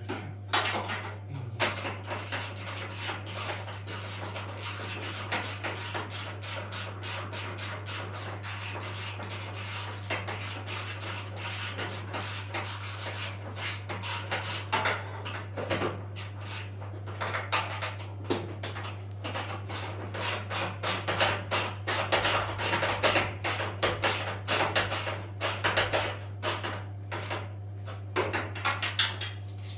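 Continuous irregular rubbing and scraping with scattered clicks and knocks: washing-machine parts being worked by hand, plastic and metal rubbing against each other. A steady low hum runs underneath.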